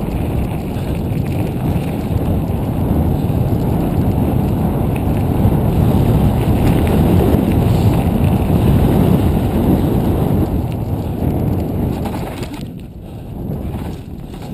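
Wind rushing over a bike-mounted action camera's microphone as a mountain bike rolls down a rocky dirt trail, with the tyres rumbling over loose stones. The rush eases for a moment near the end.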